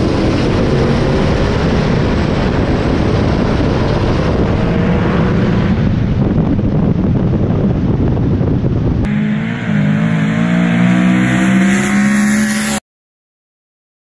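Turbocharged big-block V8 drag car at full throttle during a street-race pass, a dense, loud engine and rushing-air noise whose pitch climbs steadily as it accelerates. About nine seconds in it changes abruptly to a steadier, lower engine note, then cuts out to silence near the end.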